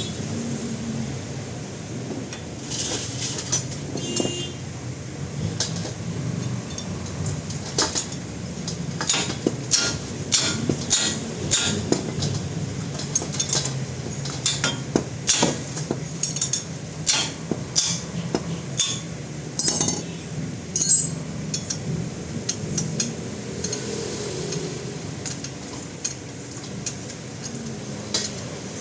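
Irregular metal-on-metal taps and clinks of hand tools, like a hammer striking and tools being handled, over a steady low hum. The clinks are thickest through the middle and thin out near the end.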